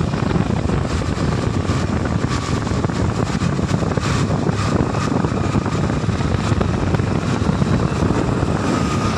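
Steady wind rush and motorcycle engine noise from riding at speed on a wet road, with a second motorcycle running alongside.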